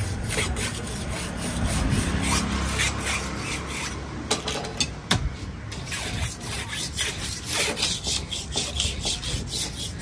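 A large broad-bladed knife being sharpened on a flat sharpening stone: the steel edge scrapes back and forth across the stone in quick, regular strokes, a few a second.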